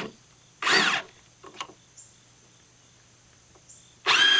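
Cordless impact driver driving 3-inch screws into wooden floor joists. A short trigger pull about a second in makes the motor whine rise and fall. Near the end a longer run rattles with rapid hammering as the screw goes in.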